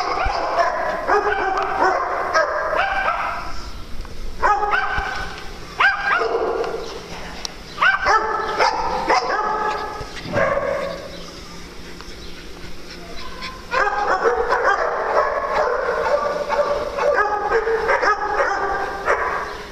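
Dogs barking in quick runs of short, sharp barks while playing, with a quieter spell of a couple of seconds about halfway through.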